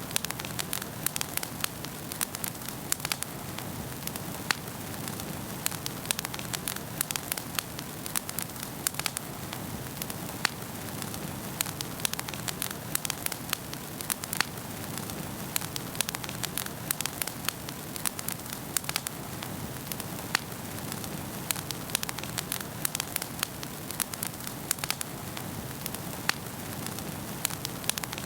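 Wood fire crackling in a fireplace: frequent sharp pops and snaps, several a second, over a steady hiss and low rumble of the flames.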